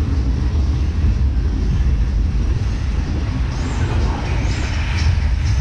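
Caterpillar family steel roller coaster train running along its track: a steady low rumble of wheels on the rails, with brighter, higher sounds coming in about two-thirds of the way through.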